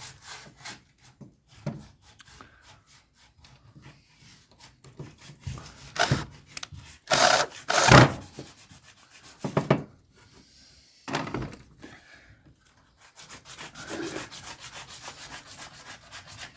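Teak wood being worked by hand: rubbing and scraping strokes, with a few loud knocks on the wood around the middle and a run of lighter repeated strokes near the end.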